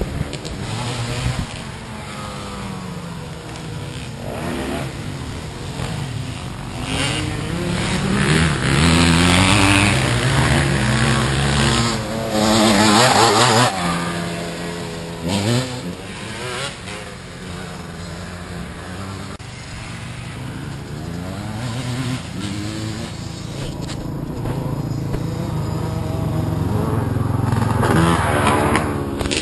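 Dirt bikes running on a motocross track: the engines rise and fall in pitch as the riders rev, shift and come past. They are loudest around eight to fourteen seconds in and again near the end, as another bike approaches.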